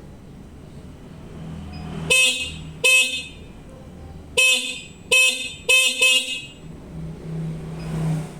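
Electric bicycle's horn beeping six short times from its newly wired horn button. The first two beeps are about a second apart and the last four come in quicker succession. The horn sounding shows the soldered button connection works.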